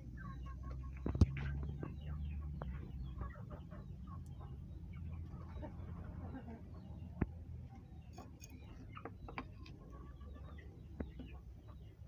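Chickens clucking, over a wood fire crackling under a cooking pot, with a sharp snap about a second in and a few smaller pops.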